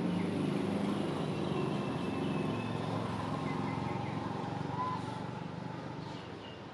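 A motor vehicle's engine running nearby, a steady low hum that slowly fades away, with a few faint high chirps over it.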